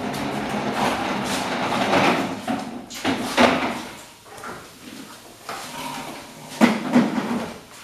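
A long-handled tool scraping ash and embers across the floor of a wood-fired brick bread oven. Several rough scraping strokes: a long stretch at first, then shorter strokes about three and a half and seven seconds in.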